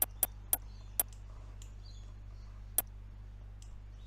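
A few sharp clicks at uneven gaps: three in the first half-second or so, one about a second in, and one more near three seconds in, over a low steady hum.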